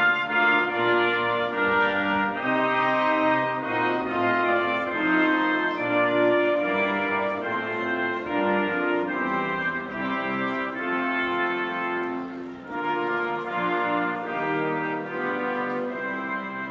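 A national anthem played by brass and orchestra: held brass chords moving from note to note, softening a little toward the end.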